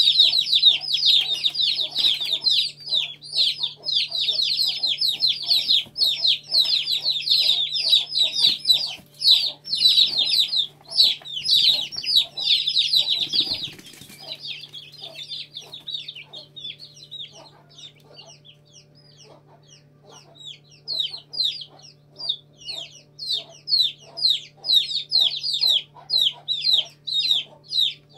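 Aseel chicks peeping in a dense chorus of short, high cheeps that each slide downward. There is a brief knock about halfway as a dish is set down among them. The peeping falls almost silent for a few seconds after that, then starts up again.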